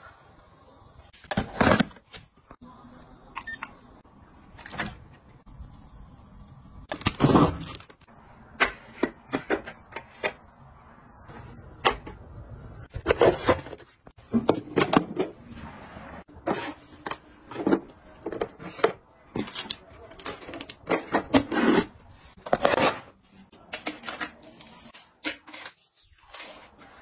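Close-up handling sounds: a string of sharp clicks and knocks from plastic household gadgets and a taped cardboard parcel being handled, with short rustles in between.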